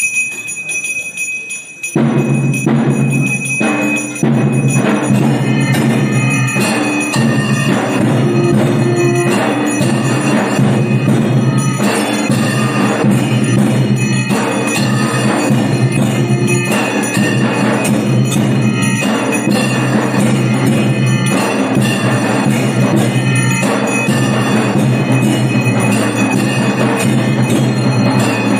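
Temple bells and drums ringing together, loud and continuous, for the deeparadhana lamp offering. A lighter single bell tone starts it, and the full ringing comes in about two seconds in.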